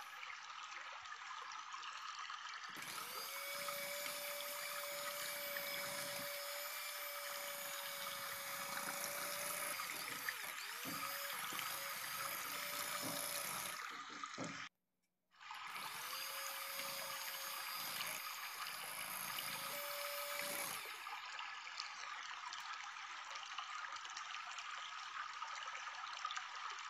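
Electric hand mixer running, its beaters churning thick cake batter in a glass bowl, with a steady motor whir. The sound cuts out for a moment about halfway through.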